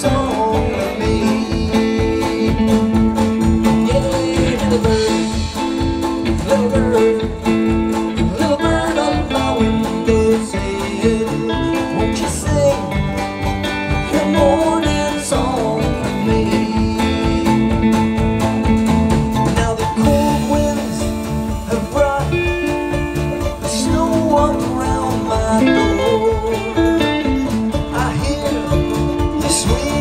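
Live acoustic band playing a folk-country song, with guitars and other plucked strings strumming a steady beat under sustained chords.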